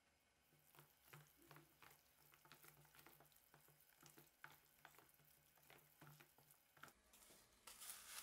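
Ground chicken filling being stirred and kneaded by hand in a stainless steel bowl: soft, irregular wet squelches and clicks, with a short hiss near the end.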